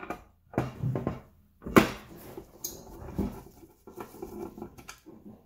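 Screwdriver undoing a screw in the stamped steel cover of a Honda OBD1 ECU: irregular metallic clicks and scrapes, the sharpest knock nearly two seconds in.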